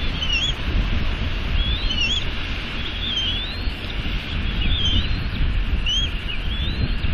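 Short, high chirping bird calls, each a quick up-or-down whistle, come a few times a second over wind rumbling on the microphone and a steady hiss of rain.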